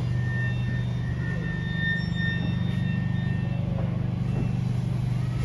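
Stationary Uetlibergbahn electric train humming at the platform: a steady low hum from its running onboard equipment. A thin high whine sounds over it for the first three seconds or so.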